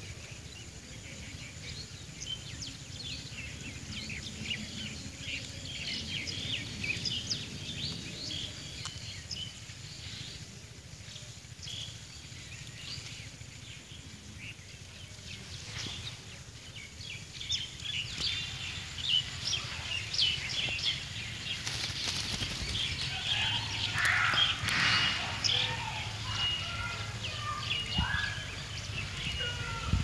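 Indian ringneck parakeets chirping in many short, high calls over a low outdoor rumble. The chirping is sparse through the middle and grows busier and louder in the last third, with a run of short repeated notes near the end.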